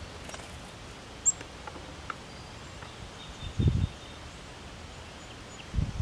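Outdoor ambience with wind buffeting the microphone in two short low rumbles, around the middle and at the end. A bird gives a single sharp high chirp about a second in, and faint distant bird calls sound in the background.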